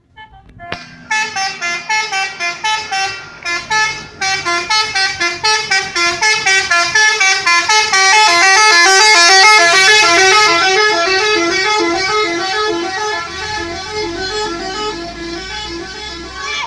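Bus telolet horn, a set of multi-tone musical horns, playing a fast melody of notes that step up and down, several a second. It starts about a second in, is loudest midway, and stops at the end.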